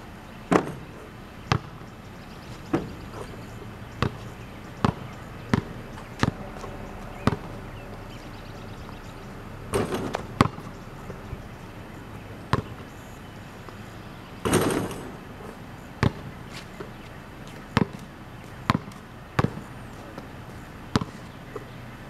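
Basketball bouncing on a concrete driveway: sharp, irregular smacks, about fifteen in all, with a couple of longer, rougher noises partway through.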